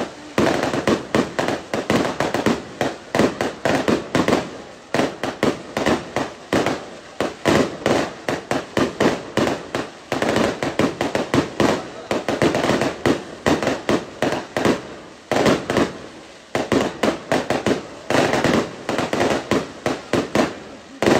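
Aerial firework shells bursting overhead in a continuous barrage of sharp bangs and crackles, many a second, with brief lulls every few seconds.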